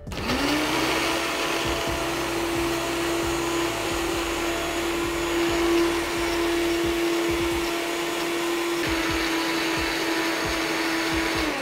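Countertop blender running, blending a wet marinade of peppers, garlic, spices and a little water in its plastic jar. The motor spins up at the start, holds a steady whine, and winds down just before the end.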